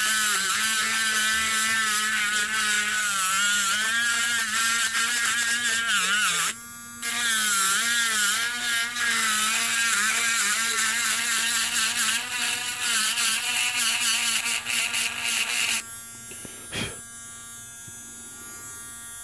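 Small handheld rotary grinder whining as its bit grinds down the ring of a Hot Wheels car's chassis rivet, the pitch wavering as it is pressed into the metal. The grinding breaks off briefly about six and a half seconds in. Near the end it stops biting and the motor runs on, quieter and steady.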